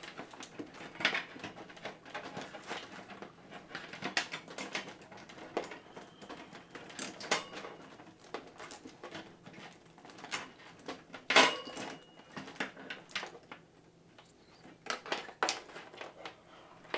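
Cables being handled and tucked inside a PC case: irregular clicks, taps and rustles, with one sharp knock about eleven seconds in.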